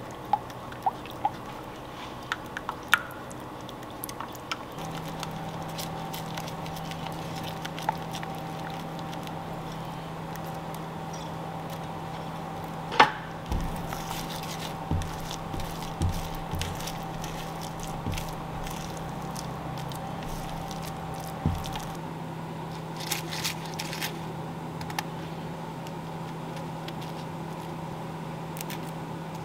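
Silicone spatula stirring and scraping soft scrambled eggs in a ceramic pan, with wet squishing and occasional taps of the spatula on the pan. A sharp click comes about thirteen seconds in. A steady low hum starts about five seconds in.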